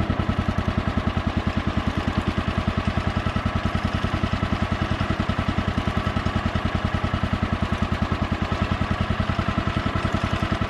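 Small single-cylinder gas engine of a portable bandsaw mill idling steadily, with a fast, even pulse.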